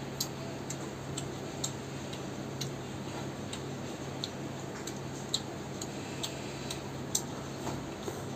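A person chewing rice and curry eaten by hand, close to the microphone: irregular small wet mouth clicks and smacks, one or two a second, over a steady low hum.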